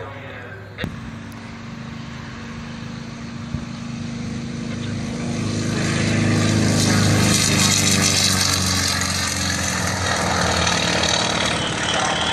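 Piston-engined propeller aircraft passing low, a steady engine drone that builds to its loudest about two-thirds of the way through, then eases off a little.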